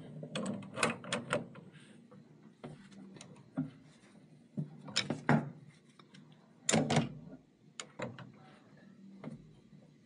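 Adjustable wrench and backup wrench clinking and scraping on a braided water hose fitting as it is tightened: a scatter of sharp metallic clicks and knocks, the loudest about a second in, around five seconds in and about seven seconds in, over a faint low hum.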